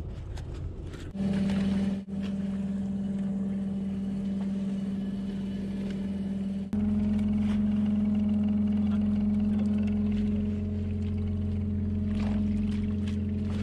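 Motor machinery on a fishing boat running with a steady hum. The hum starts about a second in, dips for a moment, then steps up louder about halfway through as the load or throttle changes.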